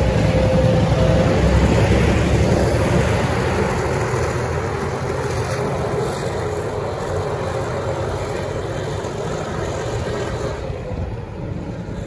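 Y class diesel shunting locomotive running as it hauls passenger carriages away, with the rumble of wheels on the track. The sound fades steadily as the train pulls away.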